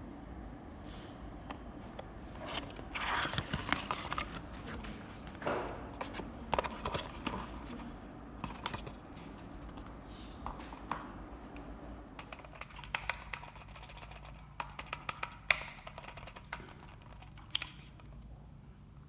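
Plastic wireless computer mice being handled, with a run of short sharp clicks from buttons and handling and some rustling early on; a few louder single clicks come near the end.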